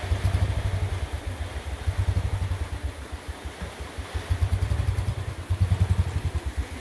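Royal Enfield Standard 350 single-cylinder engine running at low revs with a rapid, pulsing thump; it cuts in abruptly at the start.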